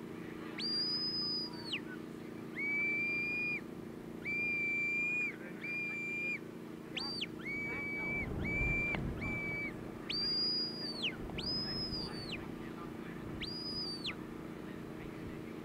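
Sheepdog handler's whistle commands to a working dog: a string of about eleven short blasts. Some are high and end with a downward fall, others are lower and held flat, several coming in quick succession. A brief low rumble comes about eight seconds in.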